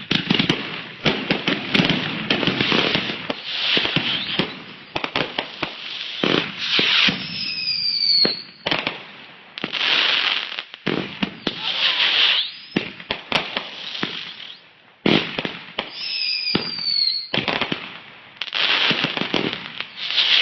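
Consumer fireworks going off: dense volleys of rapid crackling bangs and pops from 500-gram cakes and mortar shells, with brief lulls. A falling whistle sounds twice, near the middle and about three-quarters of the way through.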